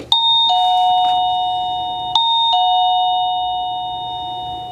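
PawTechie plug-in doorbell receiver sounding a two-note ding-dong chime twice, a higher note then a lower one, the second ding-dong about two seconds after the first, fading away.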